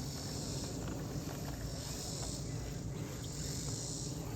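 Insects chirring in a high-pitched chorus that swells and fades about every second and a half, over a steady low rumble.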